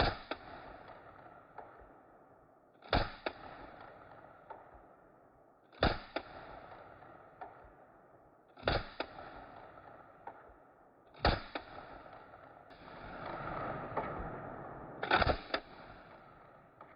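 Zastava M56 submachine gun firing 7.62x25 mm Tokarev in semi-auto: six single shots spaced about three seconds apart, each ringing briefly and followed by a few small clicks. A rushing noise swells and fades in the long gap before the last shot.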